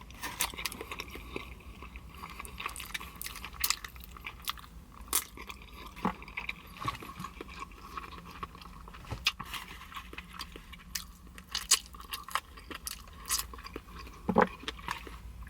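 A person chewing a bite of chicken wingette, heard close up: irregular mouth clicks and smacks throughout. A faint steady low hum lies underneath.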